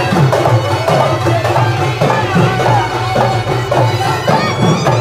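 Loud traditional music with drums and a wavering melody line.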